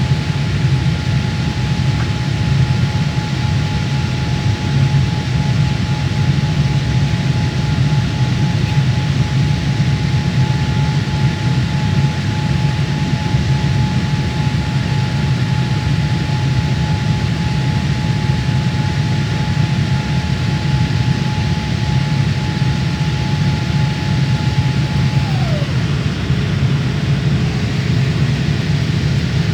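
Jet airliner engine noise heard inside the passenger cabin: a steady, loud, low rumble with a high engine whine that slides down to a lower pitch near the end and holds there.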